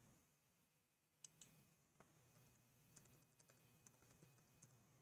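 Very faint computer keyboard keystrokes while a password is typed: a handful of sharp, irregularly spaced clicks over near silence.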